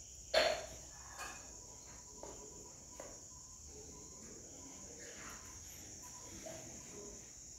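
Steady high-pitched chirring drone in the background, with one short, louder sound about half a second in and a few faint soft sounds after it.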